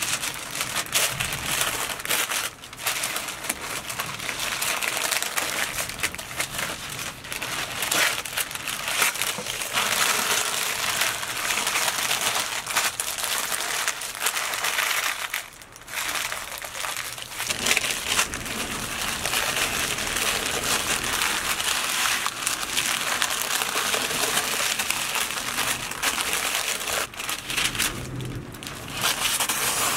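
Sheet of paper crinkling and rustling as it is folded and rolled tightly around a whole stuffed fish by hand, with brief pauses between handlings.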